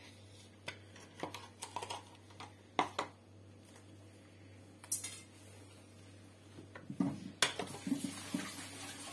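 A metal spoon knocking and scraping against a nonstick frying pan as a spoonful of butter is worked off it onto grated carrot, apple and sugar: a handful of separate clicks and knocks, the loudest about three, five and seven and a half seconds in.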